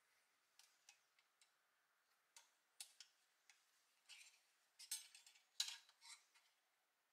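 Small metal clicks and taps as a thin steel rod is worked into the painted pressed-steel blade assembly of a toy road grader, with a brief run of scraping and clinking about four to six seconds in, the loudest clink a little before the sixth second.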